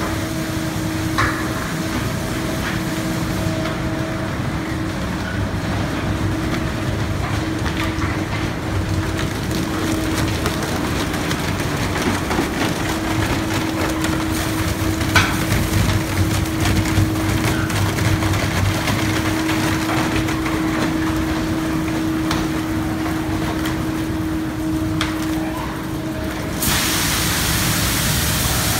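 Tunnel car wash machinery running on a passing car: hydraulic cloth wrap brushes and hanging cloth curtains spinning, swishing and slapping against the body, over a steady machine hum with scattered knocks. Near the end a loud steady hiss comes in.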